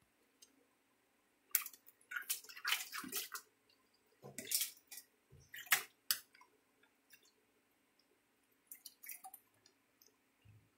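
A macaque's hands splashing and slapping water in a stainless steel bowl sitting in a metal sink, in several short bursts. The busiest splashing comes about two to three seconds in. A faint, low, steady hum runs underneath.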